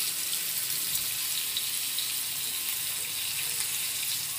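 Semolina-and-gram-flour-coated black pomfret pieces shallow-frying in oil on a flat iron tawa: a steady sizzle with small scattered crackles.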